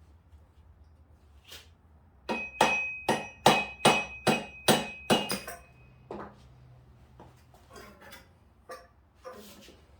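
Motorcycle fork tube parts struck metal-on-metal about ten times in quick succession, around three blows a second, with a ringing note over each strike, as the fork seal is knocked out. A few lighter knocks and clicks follow.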